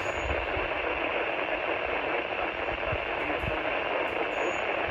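Radio receiver hissing steady static, a narrow band of noise with no signal coming through.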